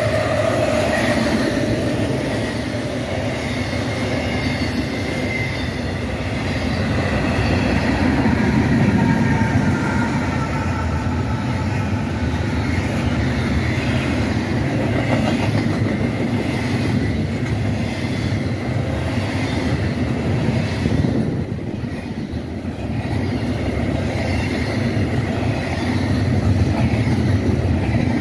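Double-stack intermodal freight cars rolling past: a steady rumble and clatter of steel wheels on rail. Faint high wheel squeals come and go.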